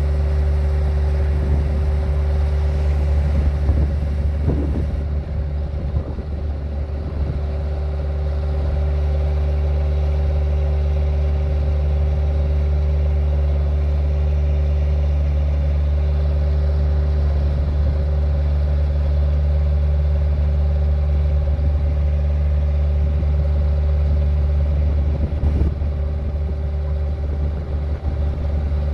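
Bobcat skid-steer loader's engine running steadily, powering a hydraulic auger drive that turns a steel ground screw into the ground.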